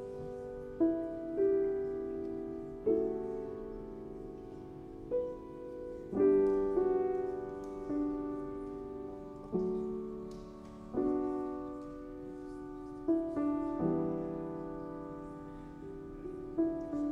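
Slow, gentle solo piano music: chords and single notes struck every second or so and left to ring and fade.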